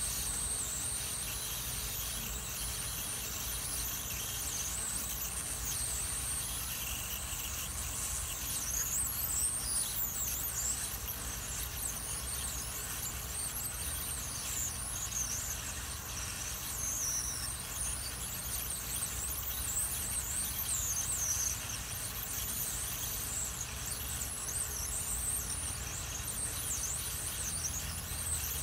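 Hot air rework gun blowing onto a surface-mount IC to melt its solder: a steady high airy hiss with wavering squealing whistles, over a low hum.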